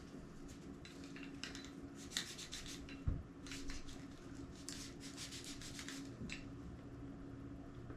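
Plastic casing of a Sony DCR-TRV900 camcorder being scrubbed with rubbing alcohol, in several short bouts of quick rubbing strokes. There is a dull knock about three seconds in, and a faint steady hum underneath.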